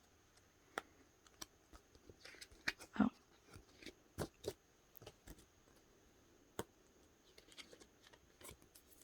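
Faint, scattered clicks and light rustles of photocards and their plastic packaging being handled and opened by hand.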